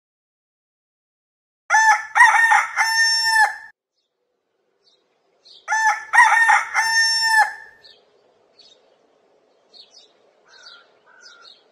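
A rooster crowing twice, each crow about two seconds long, followed by faint, short chirps of small birds.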